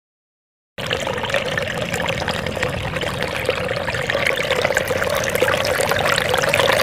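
Water running in a steady stream with a fine crackle, starting abruptly about a second in.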